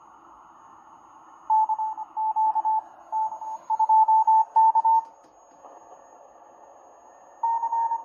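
Morse code (CW) on the 160-metre amateur band received on a 1921 Grebe CR-8 regenerative receiver: a single tone keyed in dots and dashes over steady band hiss. The signal starts about a second and a half in and drops out for about two seconds, leaving only hiss, before the keying resumes near the end.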